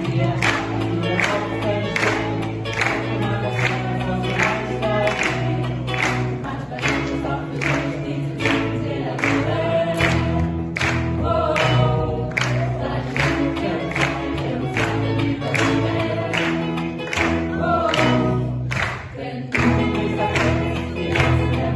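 A small group of amateur singers singing a German song together in chorus, accompanied by piano and electric guitar over a steady beat.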